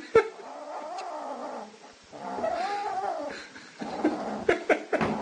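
Kitten growling and yowling in long, wavering stretches with a short break about two seconds in, the sound a greedy kitten makes over its food. A sharp knock just after the start and a few clicks near the end.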